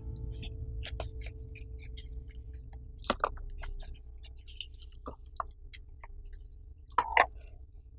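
Handling of a small accessory box and its cables: scattered light clicks and rustles, with sharper knocks about three seconds in and a pair about seven seconds in, over a faint steady low hum.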